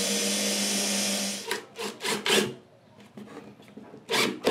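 Cordless drill running steadily as it bores a pilot hole into a pine board, stopping about a second and a half in. A few short bursts of sound follow, then a quieter stretch and more short sounds near the end.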